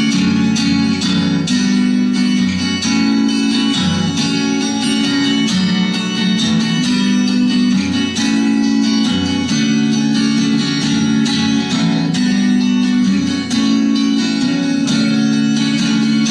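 Steel-string acoustic guitar, capoed, strummed steadily in a repeated chord pattern.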